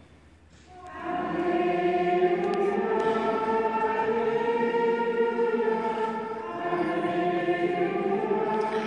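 Choir singing a slow hymn in long, held chords, coming in about a second in.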